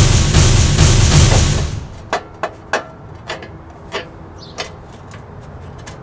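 A loud rushing noise for about two seconds, then a run of sharp, light clicks and knocks, roughly one or two a second: small metal carburetor parts being handled and set down while the carb is taken apart.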